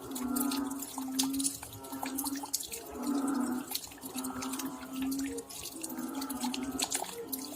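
Rain at night, many separate drops dripping and tapping, over a low humming tone that breaks off and comes back every second or so.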